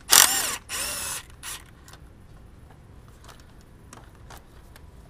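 Hand ratchet loosening a 10 mm bolt: a few loud rasping ratchet strokes in the first second, then only scattered light clicks and taps.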